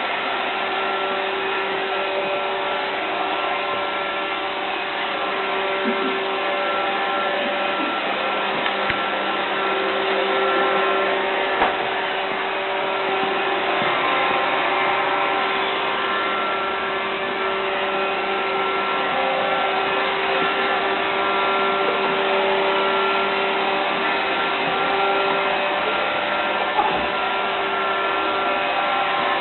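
Roomba robot vacuum running: a steady whir of motor and brushes with a humming tone, and a few light knocks along the way.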